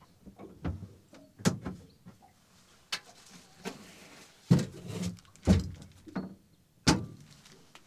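Irregular hollow knocks and clunks of things being shifted and bumped about while rummaging in a storage box under a boat's console seat. About seven knocks, the loudest about halfway through and again near the end.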